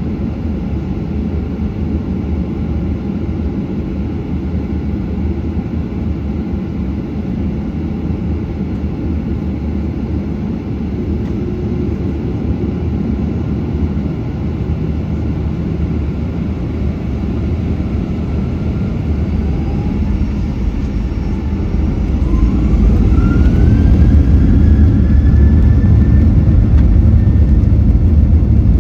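Boeing 737-800 engines heard from inside the cabin: a steady low rumble. About two-thirds of the way through, the engines spool up with rising whines and the rumble grows louder as takeoff thrust is set.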